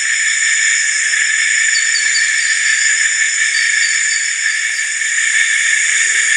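Dense, steady chorus of night insects in the rainforest, several high-pitched layers sounding at once, with a faint run of quick chirps about two seconds in.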